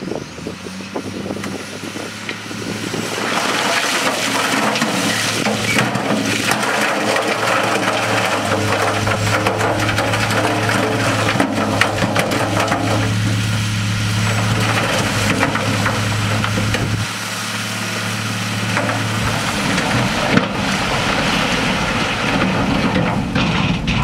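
A diesel tipper truck's engine is held at a steady raised speed to drive the hydraulic tipping ram as the bed lifts. From a few seconds in, rock and soil slide and tumble out of the raised bed in a long, loud rush, with stones knocking as they fall. The engine note drops away near the end while the spill goes on.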